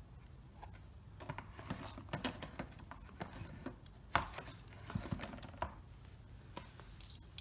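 Light clicks and taps of a small black plastic box and its wires being handled and set down on a tabletop, with a few sharper knocks about four to five seconds in.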